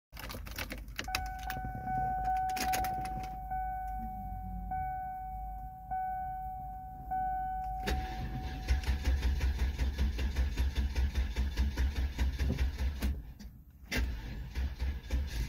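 A car's warning chime sounds repeatedly, about once every second, for several seconds. Then, about 8 seconds in, the starter cranks the 4.6 Northstar V8 in fast, even pulses on a weak battery. It stops briefly and cranks again near the end.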